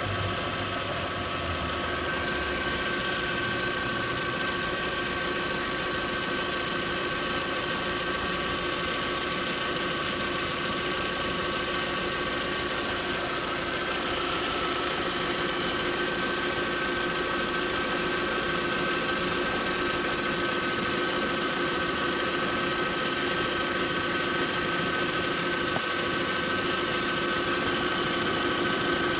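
Turbocharged 1.8T inline-four engine of a MK4 Volkswagen Jetta idling steadily, with a steady high whine over it. The owner hears no noise from it that points to a failing timing belt tensioner.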